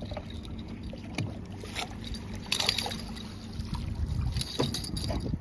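Water splashing and sloshing as a hooked fish is scooped into a landing net beside a boat hull, over a low wind rumble on the microphone. The loudest burst of splashing comes about two and a half seconds in, and a smaller one comes near the end.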